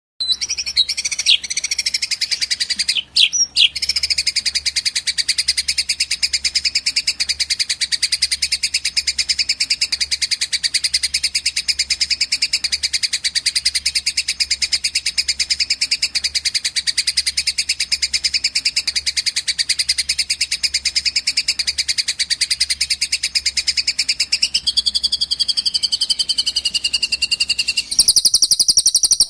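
Fast, unbroken chattering of bird calls from a bird-song training recording of fighting Eurasian tree sparrows and cililin. Near the end it switches to a different, higher chirping pattern.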